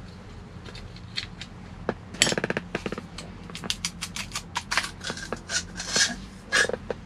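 Metal clicks and scrapes as the gear shift knob on a Kenworth T800 is worked loose and pulled off the shift lever, with a quick run of rattling clicks a little over two seconds in.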